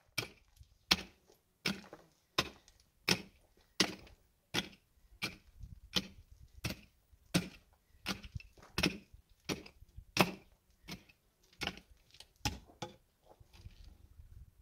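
Steady, rhythmic blows of a short-handled hand pick or hoe biting into hard, stony earth, about one blow every 0.7 seconds, some twenty in all. The blows give way to lighter scraping knocks near the end.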